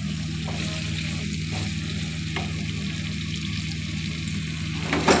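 Ridge gourd curry sizzling and bubbling in oil in a nonstick wok over high heat, with a steady low hum beneath. This is the frying-down stage, where the last of the vegetable's water cooks off and the oil separates. Near the end a spatula knocks and scrapes against the pan a couple of times.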